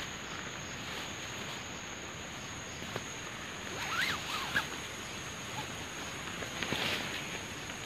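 Steady rain hiss with a thin, continuous high tone over it. A few short bird chirps come about four seconds in, and the nylon tent fabric rustles as it is pulled and handled near the end.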